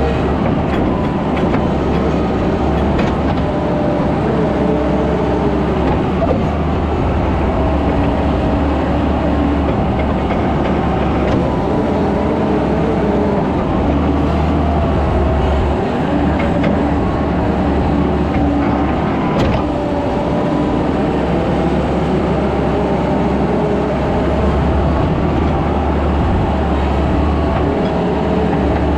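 Skid steer loader running steadily under work, its engine giving a constant low drone with a wavering, squealing whine over it that rises and falls as the machine moves dirt.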